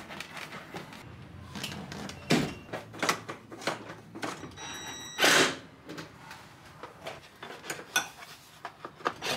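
Knocks, clicks and clunks of a BMW E39 leather front seat being set back onto its floor rails, with one louder, longer scraping rush about five seconds in.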